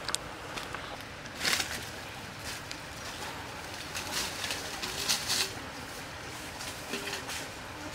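Footsteps and rustling through dry leaf litter, grass and brush, in several short bursts over a steady background hiss.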